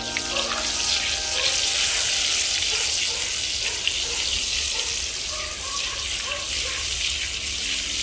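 Butter melting and sizzling in hot olive oil in a wok, a steady dense hiss.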